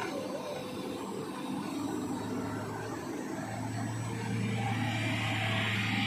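Hitachi Zaxis 210 excavator's diesel engine running steadily, its drone growing stronger and louder a few seconds in.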